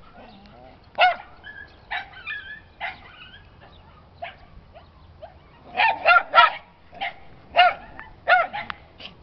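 A dog barking at play: short single barks spaced a second or so apart, with a quick run of three barks about six seconds in.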